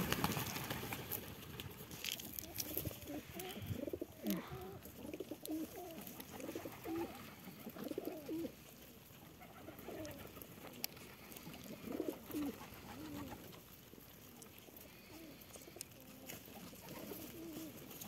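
Domestic pigeons cooing, low rolling coos repeated every second or two.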